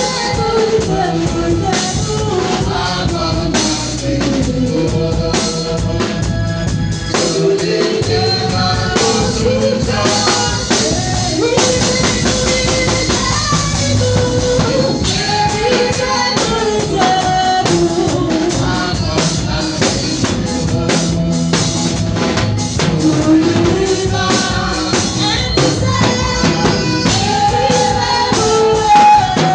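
Worship music: a sung melody over a drum kit and other instruments, with a steady beat.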